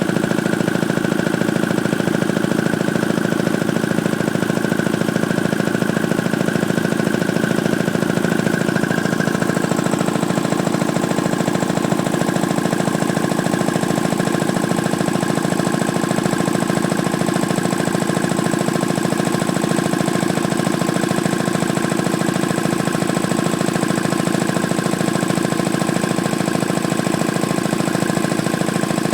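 Ingersoll-Rand T-30 piston air compressor running steadily under load, pumping up toward full pressure with a rapid even pulse. Its tone shifts slightly about ten seconds in.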